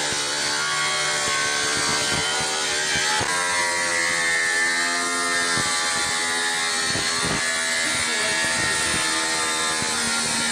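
Corded electric power tool running against a car's door lock: a steady motor whine with a few sharp scraping hits as it bites into the metal.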